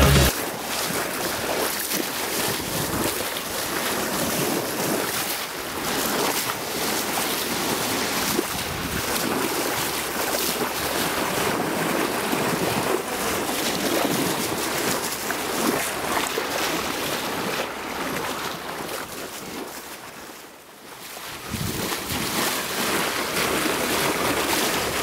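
Water rushing and splashing at a sailing yacht's bow as it moves through the sea, with wind buffeting the microphone. The rush dips briefly quieter about twenty seconds in, then comes back.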